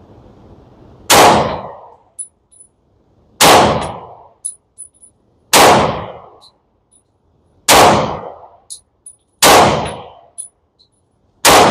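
10mm FN 510 Tactical pistol firing CCI Blazer 180-grain rounds in slow aimed fire: six loud shots, about two seconds apart, each ringing off briefly. Faint high ticks follow between the shots.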